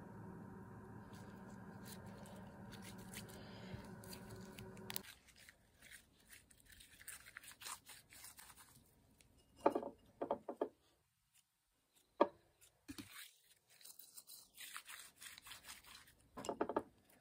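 Soft slime being squeezed and squished between the hands, making scattered sticky clicks, crackles and a few louder wet pops, some of them about halfway through and again near the end. A steady low hum runs under the first few seconds, then stops at a cut.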